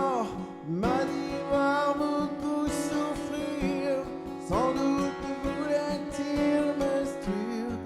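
Strummed acoustic guitar with a solo male voice singing two held, sliding phrases.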